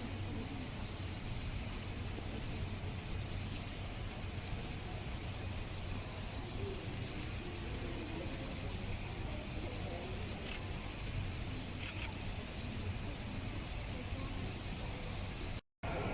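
Steady background hiss with a low hum and faint, indistinct murmuring, broken by a brief total dropout near the end.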